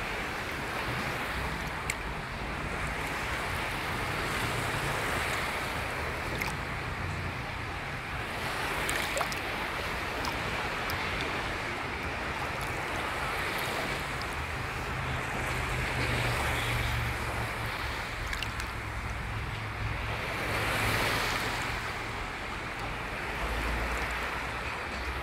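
Small sea waves lapping and sloshing close to the microphone, a steady wash that swells louder twice, over a low rumble.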